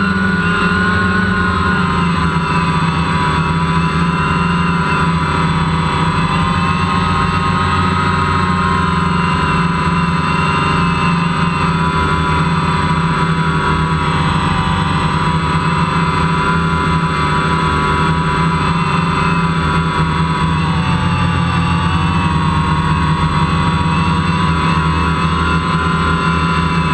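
DJI Phantom quadcopter's four brushless motors and propellers whirring steadily as it hovers, heard loud and close from the GoPro on the drone. The pitch drifts gently up and down with small throttle corrections and dips briefly about three-quarters of the way through.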